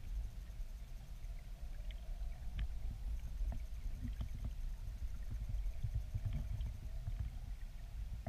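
River water flowing below a small weir, picked up by a submerged camera as a steady, deep, churning noise. Scattered small clicks sound through it.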